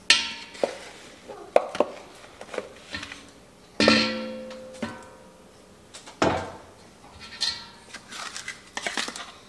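Metal measuring cup knocking and scraping against the inside of a large stainless steel stockpot as pureed peppers are emptied into it. There are several sharp knocks, each leaving the pot ringing briefly, with lighter clinks and scrapes between them.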